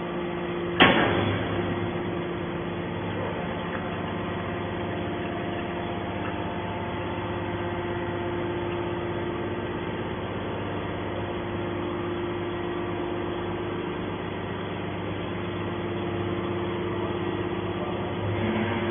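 Hydraulic baler running with a steady hum from its motor and pump, with one sharp clank about a second in.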